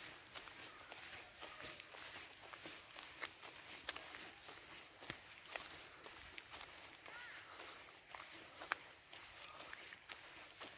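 A steady, high-pitched insect chorus, with scattered small clicks and crackles throughout.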